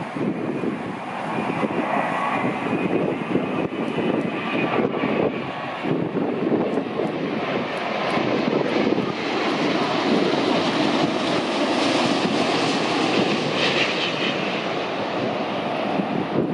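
Heavy jet airliner on landing approach passing close by: a continuous engine rush with a faint high whine in the first few seconds, growing louder toward the middle and holding.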